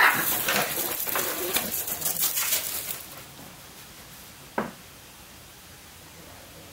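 Two bobcat kittens fighting over food, with loud hissing and growling for about three seconds, then a single sharp click about four and a half seconds in.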